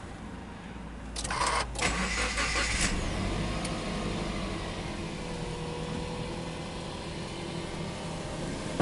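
Subaru Impreza 1.5i-L's EL15 1.5-litre flat-four boxer engine being started, heard from inside the cabin: the starter cranks about a second in, the engine catches with a brief flare, then settles into a steady fast idle that slowly eases down.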